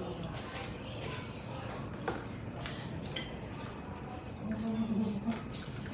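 Quiet eating at a table: two sharp clicks about two and three seconds in and a short low hum near the end, over a steady high-pitched trill.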